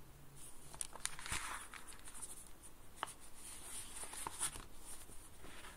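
Faint room noise from the narrator's recording space: a few soft clicks and a brief stretch of rustling, like paper or desk handling, about a second in.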